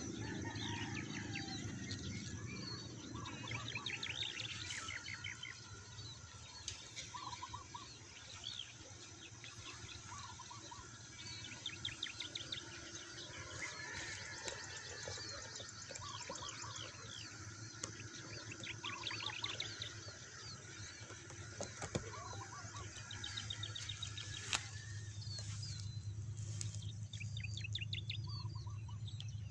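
Small birds chirping, with quick repeated trilling runs throughout, over a steady low rumble.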